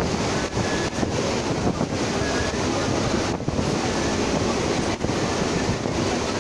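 Wind rushing in at the open doorway of a moving Chennai EMU suburban electric train and buffeting the microphone, over the steady running noise of the train on the track.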